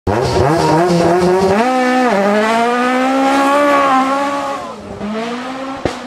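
Rally car engine accelerating hard: the pitch climbs, drops sharply at a gear change about two seconds in, climbs again, then falls away as it comes off the throttle around four seconds in. A short sharp crack comes just before the end.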